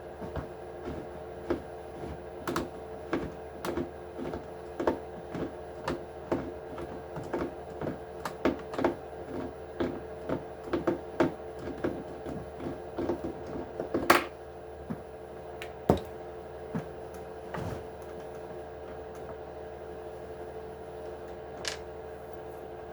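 Small hand tools working bolts out of an RC truck's chassis, making light clicks and ticks of metal on metal and plastic. The clicks come about two a second for the first half, then grow sparse, with a couple of louder single clicks. A steady hum lies under it.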